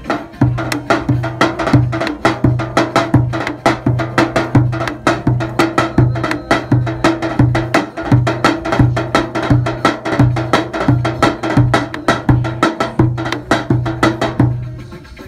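Turkish davul played by hand: deep booms from the heavy beater in a steady rhythm, with quick, lighter, sharp strokes in between. The drumming stops shortly before the end.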